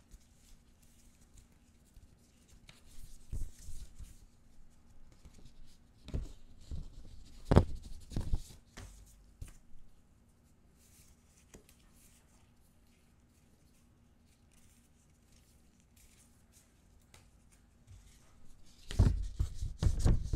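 Gloved hands handling album paper and card: rustling and flexing of printed card stock, with a few sharp taps. The handling comes in short spells, goes quiet through the middle, and turns louder near the end as a folded paper sleeve is opened.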